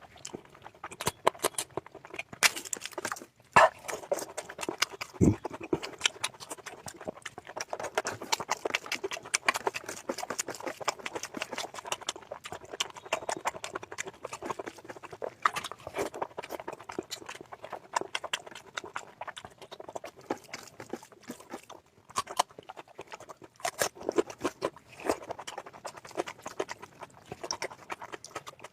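Close-miked chewing and wet mouth smacking from someone eating, a dense, irregular run of small clicks with a few sharper smacks.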